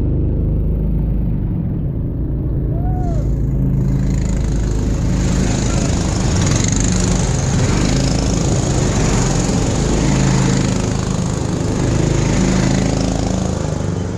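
Several small go-kart engines running together as the karts pull away from the starting grid one after another, a steady low engine drone with a rougher, busier patch through the middle.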